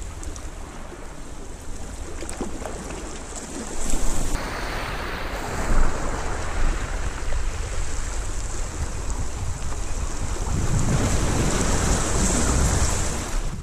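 Small waves lapping and washing over stones at the water's edge, with wind buffeting the microphone in gusts.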